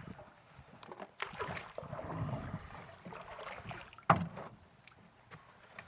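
A canoe being pulled ashore and handled: irregular scraping and rustling against the hull, with scattered knocks and one sharp knock about four seconds in.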